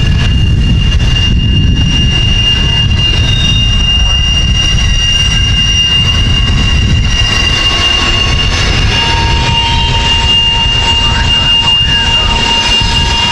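Freight cars rolling slowly past: a steady rumble of steel wheels on rail, with a high, steady squeal from the wheels throughout, joined by a second, lower squeal about nine seconds in.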